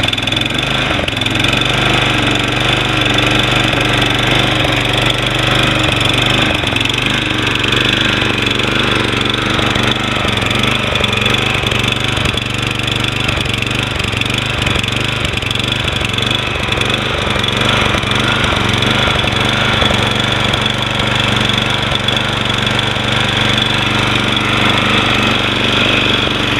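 Toro Recycler 20333 lawn mower's Briggs & Stratton 7.0 gross torque engine running steadily just after a cold start, with the engine still cold.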